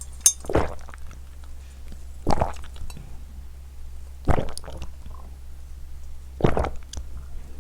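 A person swallowing water in gulps close to the microphone: four separate gulps, about two seconds apart.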